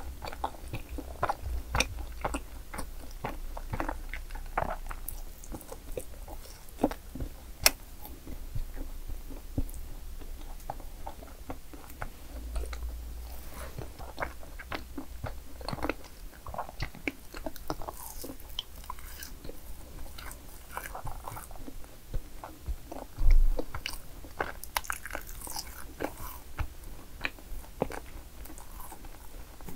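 Close-miked biting and chewing of madeleines, with crisp crunches and wet mouth clicks scattered throughout. One louder thump about two-thirds of the way through.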